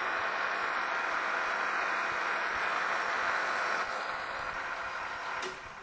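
Metal lathe under power taking a finishing cut to final diameter: a steady hiss of the tool cutting, with a thin high whine from the machine. The sound eases after about four seconds, and the whine stops about five and a half seconds in.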